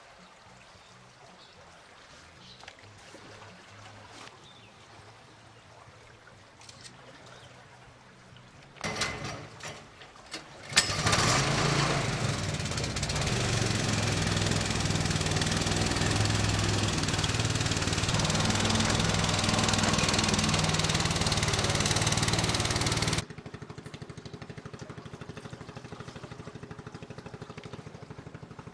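A small engine starts after a few sharp knocks about ten seconds in and runs loudly and steadily, then drops abruptly to a quieter, steady pulsing hum.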